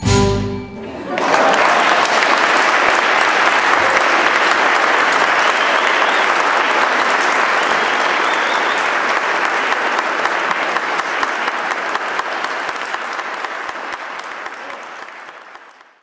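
The ensemble's last short chord on violin, guitar and double bass, then audience applause that starts about a second in, holds steady and fades out near the end.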